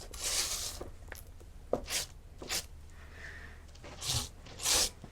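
A roller loaded with melted beeswax rubbing in strokes over plastic beehive foundation, a rasping rub that comes in bursts near the start and again near the end, with a few light clicks in between.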